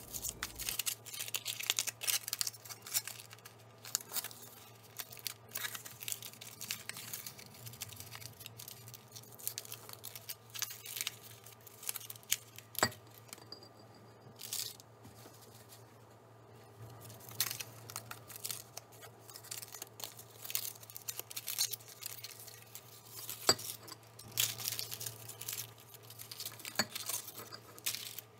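Aluminium foil crinkling and tearing as foil-wrapped eggs are opened by hand, in an irregular crackle with a few sharper clicks.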